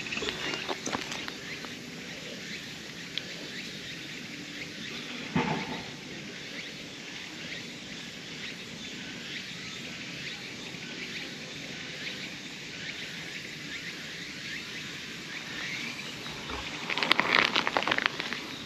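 Outdoor ambience with a steady high hiss and a short knock about five seconds in. Crackling rustles come near the end, as a hand strokes the lying cat and it stretches out on the ground.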